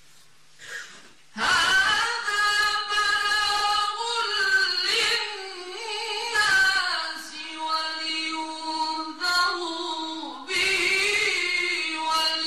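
A man reciting the Quran in the melodic mujawwad (tajwid) style, drawing out long, slowly bending notes. The voice comes in about a second and a half in, after a short pause, and breaks off for a breath about ten seconds in before going on.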